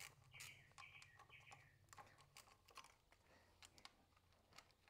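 Faint, irregular clicks and taps of a hand tool against the metal of the engine's camshaft actuator magnet, as the tool is fitted to its bolts.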